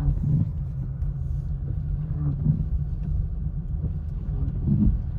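Steady low rumble of a car being driven, heard from inside the cabin: engine and tyres on a wet road.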